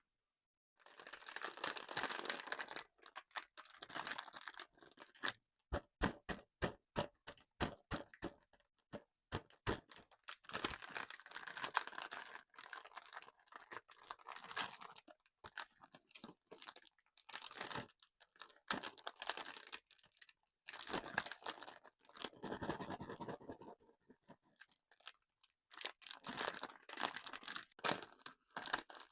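Close-miked crunching of sugary candy in repeated bursts of crackling. A few seconds in, a run of sharp cracks comes at two or three a second, then the crunching bursts resume.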